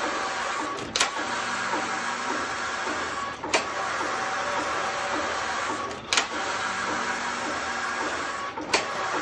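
Passap E8000 double-bed knitting machine with a motor drive knitting rows. The lock runs back and forth across the needle beds with a steady whirring rattle, and a sharp clack comes about every two and a half seconds, four times, as it turns at the end of each row.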